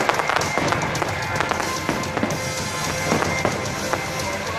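Fireworks bursting, a scatter of bangs every second or so, over a loud music soundtrack.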